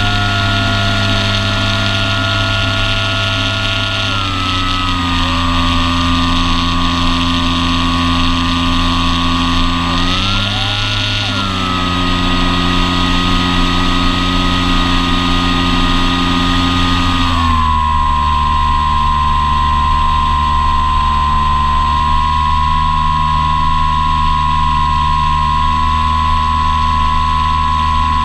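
Electric brushless motor and propeller of an Apprentice S 15e RC airplane whining in flight, with airflow hiss. The pitch steps down about four seconds in, rises briefly, then drops again and holds steady as the throttle is changed.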